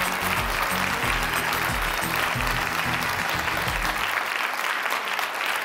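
A studio audience applauding over music with a pitched bass line. The music stops about four seconds in, and the clapping carries on alone.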